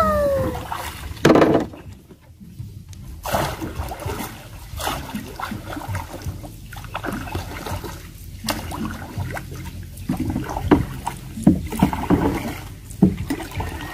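Wooden paddle dipping and pulling through river water beside a small wooden canoe, with irregular splashes and knocks.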